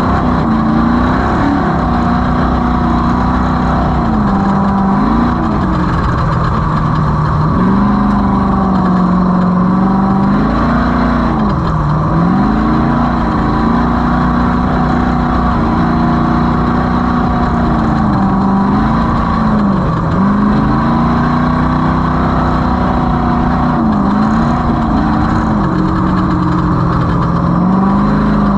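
Off-road race vehicle's engine running hard under load. Its revs hold level for several seconds at a time, then dip briefly and climb back about six times as the throttle eases and comes back on over the terrain.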